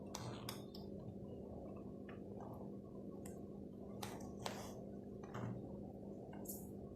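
Light clicks and taps of toy trucks being handled, irregular and a second or so apart, over a faint steady hum.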